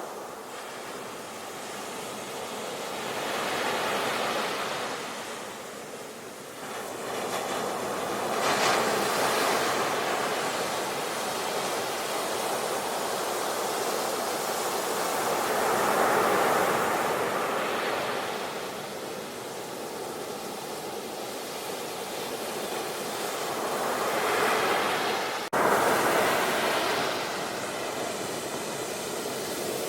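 Sea waves breaking and washing in, the surf swelling and fading every few seconds. About 25 seconds in there is a sudden click and a jump in level.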